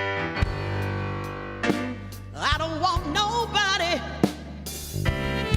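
A blues-soul band playing: held chords over a steady bass and drum hits, with a wavering lead line with vibrato from about two and a half to four seconds in.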